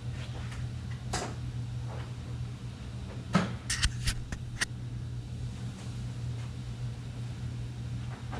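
Steady low hum with a handful of sharp clicks and taps between about three and a half and four and a half seconds in, from the camera being handled close to the microphone, and a softer click about a second in.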